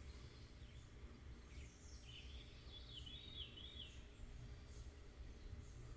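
Faint birdsong over a low steady background rumble: a wavering, warbling bird call about two seconds in, with a few short chirps around it.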